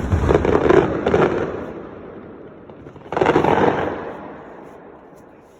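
Fireworks going off: a sharp bang, then a dense crackling burst that dies away over a second or two. A second crackling burst comes about three seconds in and also fades.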